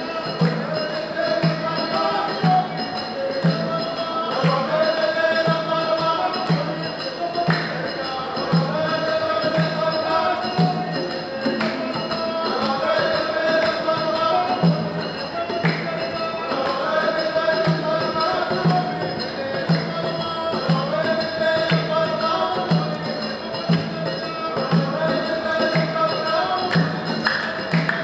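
Traditional Gulf sea-song music: a group of voices singing in repeated phrases over a steady low drum beat and jingling hand percussion.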